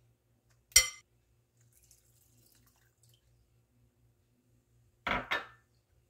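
A single sharp clink on a glass bowl about a second in, with a brief ring. Near the end comes a short double splash of water in the bowl, as butter is washed in cold water.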